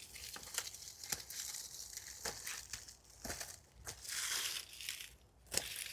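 Dry, dying melon vine leaves and stems rustling and crackling as the plant is pulled out by hand, with a few short sharp clicks among them and a louder rustle about four seconds in.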